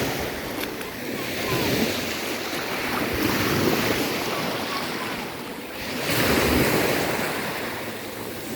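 Surf washing onto a beach in rising and falling swells, the loudest about six seconds in, with wind buffeting the microphone.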